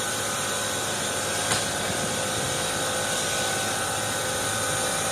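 Steady machinery noise, an even hiss and hum with several constant tones running through it, and a single click about a second and a half in.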